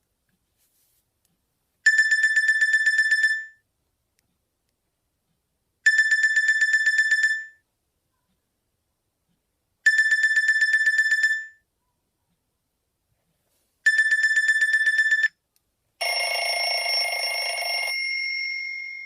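A Nokia X3-00 ringtone played on a Nokia X2-00's loudspeaker: a trilling electronic ring on one high pitch, repeated four times in rings about a second and a half long, about four seconds apart. Near the end a different, noisier chime-like tone sounds for about two seconds and fades away.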